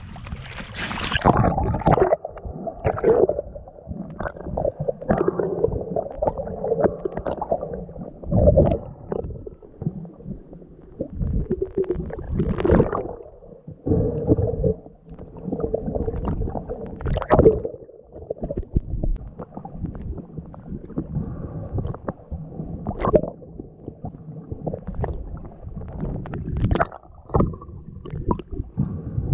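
Muffled gurgling and sloshing of water heard through a submerged camera, in irregular surges.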